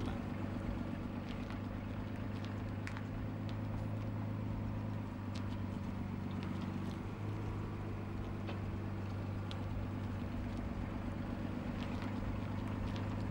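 Tractor engine running in a steady low drone as it tows a train of bomb trailers, with faint scattered clicks over it.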